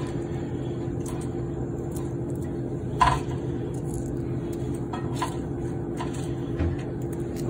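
A steady low hum with a constant pitch, with a few faint soft taps and one short click about three seconds in as onion slices are handled and laid on the sandwich.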